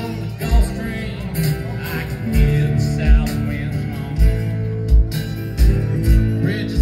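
A live band plays through a PA: acoustic guitar, electric guitar, bass guitar and a drum kit, with a regular kick-drum beat.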